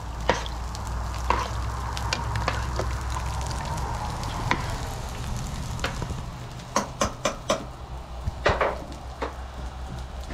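A spoon stirring ground beef into a stockpot of soup stock, scraping and knocking against the pot, with a run of four quick knocks about seven seconds in and a few more just after. Under it, the steady sizzle of cabbage frying on a gas griddle.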